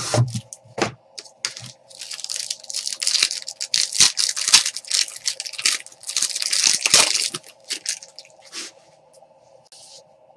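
Clear plastic wrapper of a trading card pack being torn open and crinkled by hand, in repeated rustling bursts for several seconds that die away near the end.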